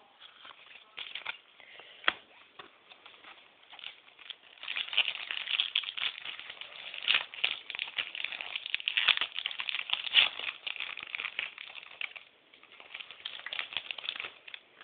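Hockey card pack wrapper being torn open and crinkled while the cards are handled: crackling rustle in stretches, loudest through the middle, with a few sharp clicks.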